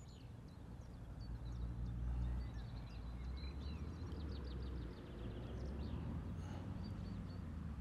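Small birds chirping in short high calls and quick trills throughout, over a low steady rumble.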